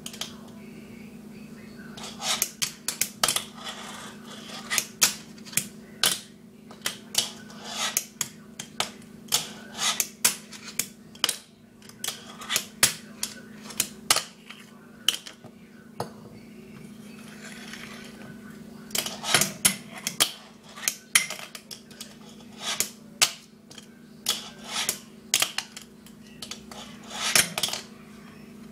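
Wooden Yellowood fingerboard on white Winkler wheels being popped, flipped and landed on a stone countertop and a metal rail: irregular sharp clacks of the deck and wheels hitting the surface in quick clusters, with a few short scrapes. A steady low hum sits underneath.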